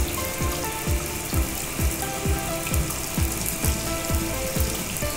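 Water-spray sound effect, a steady hiss of jets washing down a pickup truck, over background music with a steady drum beat about twice a second.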